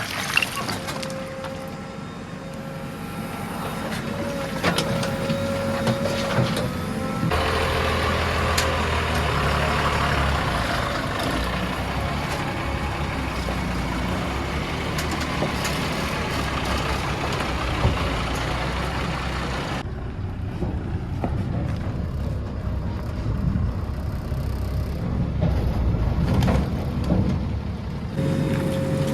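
Diesel engine of a JCB 3DX backhoe loader running while it works, loading mud. A steady whine runs for the first several seconds. The engine gets louder from about seven seconds in, as if under load.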